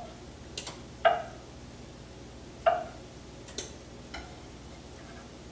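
Kitchen knife chopping a hard-boiled egg on a wooden cutting board: a few separate knocks of the blade on the board, the two loudest about a second and a half apart, with lighter clicks between and after.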